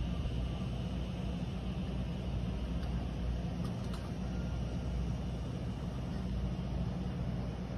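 A steady low rumbling noise with a fainter hiss above it.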